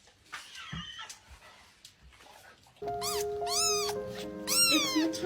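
A cat meowing again and again, short rising-and-falling cries about twice a second, over background music with held notes; both start suddenly about three seconds in, after a faint stretch.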